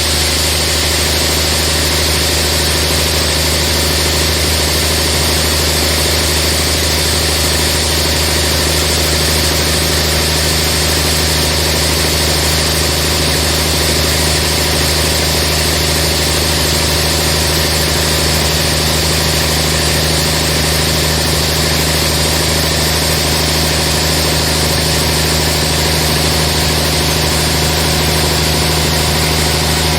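Sawmill machinery running steadily: an even, engine-like hum with a steady hiss above it, unchanging throughout.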